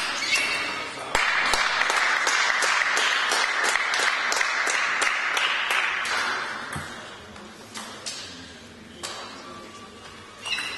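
Clapping from the spectators for about five seconds after a table tennis point, dying away, with a few sharp ping-pong ball clicks before it and scattered ball bounces in the quieter stretch that follows.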